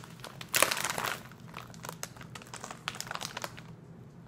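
Plastic food bag crinkling as it is handled, loudest about half a second in, then lighter rustles and clicks that die down near the end.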